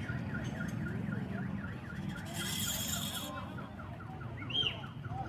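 An electronic alarm warbling, its tone sweeping up and down about three times a second, over the low rumble of a street crowd. A short burst of hiss comes about two and a half seconds in.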